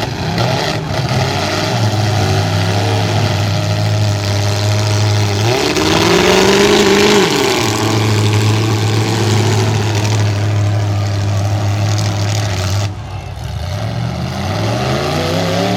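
Demolition derby car engines revving hard. A low engine note is held steady for several seconds at a time; the pitch rises and falls about six seconds in, and climbs again near the end.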